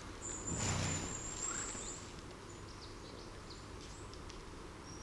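A bison herd's natural sound: a short, low grunt from a bison about half a second in. A thin high whistle runs for about a second and a half, then faint high chirps are scattered over a quiet outdoor background.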